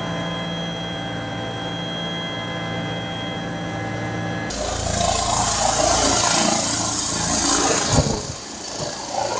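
Helicopter turbine and rotor heard from inside the cockpit in flight, a steady whine with several held tones. About four and a half seconds in it cuts to a helicopter hovering over a ship's deck: loud rotor wash and wind rushing, with a single thump near the end.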